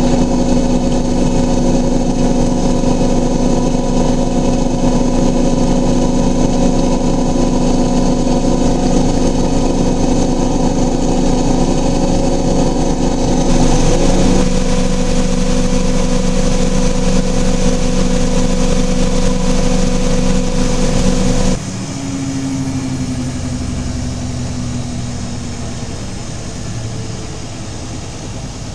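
Miele Novotronic W923 washing machine spinning at high speed with a steady whine. About three-quarters of the way through, the drive cuts out and the drum coasts down, its pitch falling as the spin ends.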